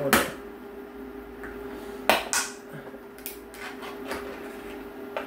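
Ring-pull tuna can being opened by hand: a sharp click as the tab breaks the seal, then louder snaps about two seconds in and a few smaller clicks as the metal lid is peeled back.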